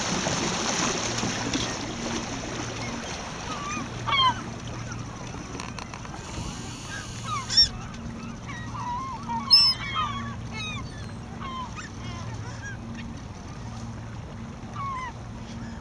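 Gulls calling over open water: a scatter of short, yelping calls, with a few louder ones near the middle.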